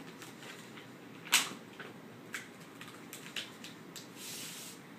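Vinyl decal being peeled off its paper backing sheet: scattered crackles and ticks of the handled backing, the loudest a sharp snap about a second and a half in, then a short peeling hiss near the end as the decal comes free.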